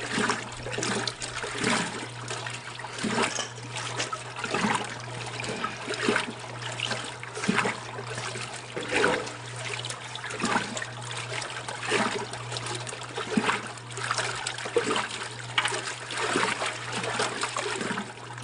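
A 70-plus-year-old Kenmore wringer washing machine agitating a load of rugs. Water sloshes in the tub in a regular surge about every second and a half, over a steady motor hum.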